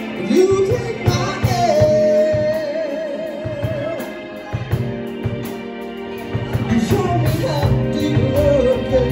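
Live band playing, with bass, electric guitar, keyboard and drums under a woman's lead vocal. She sings a rising phrase into a long held note with vibrato, then another phrase near the end.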